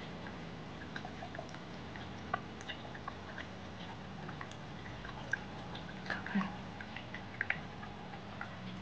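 Faint, irregular small clicks and ticks over a low steady hum, with a cluster of louder ticks a little past the middle.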